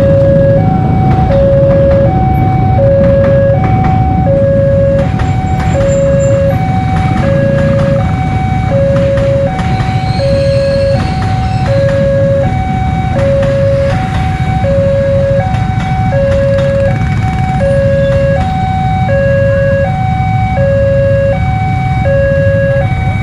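Railway level-crossing warning alarm sounding a steady alternating two-tone electronic signal, the sign that a train is approaching and the crossing is closed. A steady low rumble from the passing electric commuter train and waiting motorcycles runs underneath.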